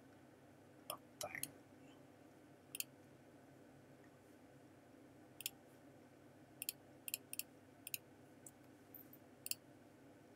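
Computer mouse clicks: about a dozen short, sharp clicks at irregular intervals, some in quick pairs, over a faint steady background hum.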